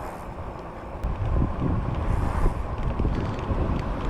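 Wind buffeting the microphone of a camera riding on a moving fat-tire e-bike, a rough low rumble that grows louder about a second in, with a single sharp click at that point.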